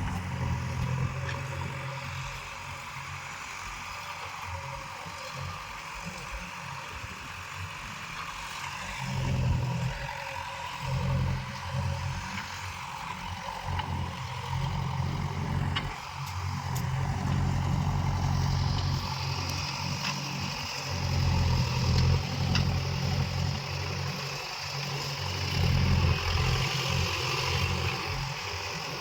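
Backhoe loader's diesel engine running and revving up and down again and again, as it does when the machine is working.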